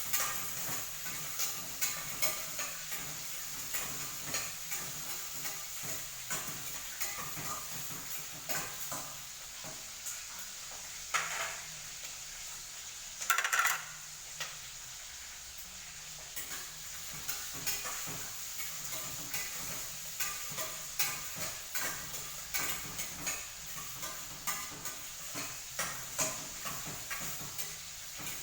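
A utensil stirring and scraping in a cooking pan while food sizzles, with many short clinks and one louder scrape about 13 seconds in.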